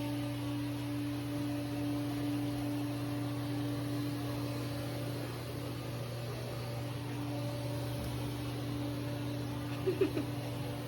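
Steady low mechanical hum with a faint steady tone above it, and a few brief sharp sounds near the end.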